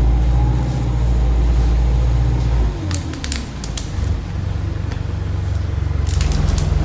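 Double-decker bus engine running close by with a deep rumble and a faint high whine; about three seconds in the engine note falls away, and a lower rumble with scattered clicks carries on.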